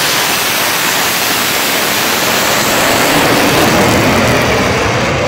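Jet truck's jet engine running at full power with its afterburner lit as the truck runs down the drag strip: a loud, even rush of noise.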